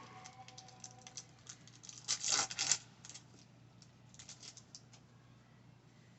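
Baseball cards and stickers from a freshly opened pack being handled: scattered light clicks and paper rustles, with a louder rustle about two seconds in, dying down after about five seconds.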